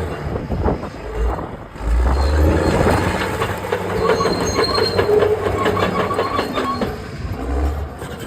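Bulldozer at work, its engine running under a dense rapid clanking and high metallic squealing from steel on metal.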